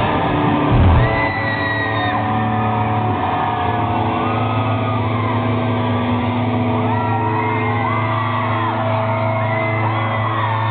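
Live rock band in a large hall: drum hits for about the first second, then the drums stop and a held chord rings on over a steady low drone, while audience members whoop and shout. It is heard through a low-quality camera microphone that cuts off the highs.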